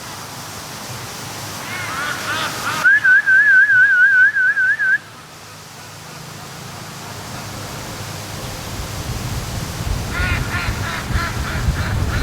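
A loud duck-calling whistle, a warbling trill held for about two seconds that cuts off abruptly, used to call ducks home. Later, wind buffets the microphone with a rising low rumble, and ducks quack faintly near the end.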